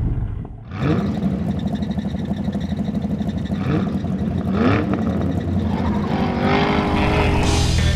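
Monster truck engine sound effect: a big engine rumbling and revving up twice, as the truck blows smoke and lifts its front wheels. Music comes in near the end.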